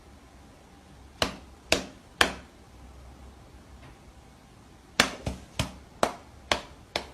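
A series of sharp taps in a small room: three about half a second apart, then from about five seconds in a quicker, uneven run of them, roughly two a second.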